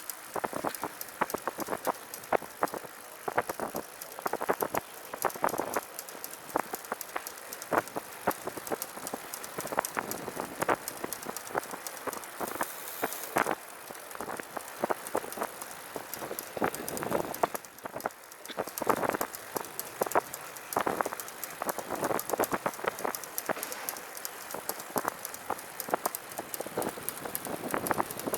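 Recumbent trike rolling along with a rapid, irregular clicking and ticking over a steady hiss of wind and tyre noise. The riders take the clicking for a rear derailleur slightly out of adjustment.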